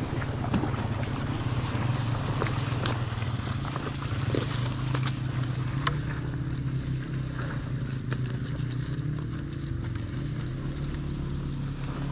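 A mountain bike being ridden over rough, stony ground: a steady rumble with frequent scattered clicks and knocks, and wind buffeting the microphone.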